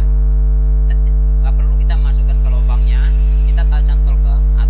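Loud, steady electrical mains hum: an unchanging low buzz with a ladder of overtones.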